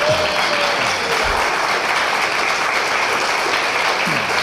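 A room full of people applauding, with some laughter mixed in. The applause is louder than the talk around it.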